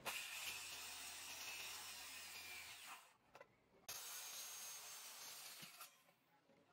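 Handheld circular saw cutting into a varnished wooden door stile to cut out termite-rotted wood. There are two cuts: the first lasts about three seconds, and the second starts about four seconds in and lasts about two seconds, with a thin high whine.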